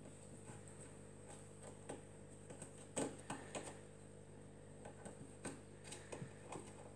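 Faint, irregular clicks and taps of a Maine Coon kitten's claws and paws scrabbling on a hard tiled floor as it wrestles a plush toy, with the loudest cluster about three seconds in.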